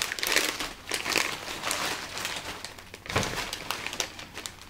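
Plastic packaging crinkling and rustling as it is handled: a plastic carrier bag being rummaged through and a Maltesers snack packet being turned over in the hands. There is a soft bump about three seconds in.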